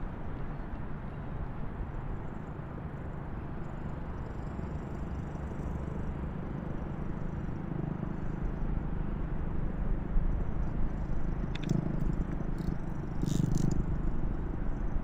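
Steady low rumbling noise, with a few sharp clicks and a short rattle near the end.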